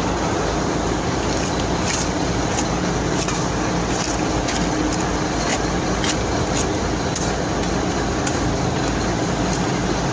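Concrete mixer truck's diesel engine running steadily with the drum turning, with a light ticking about twice a second.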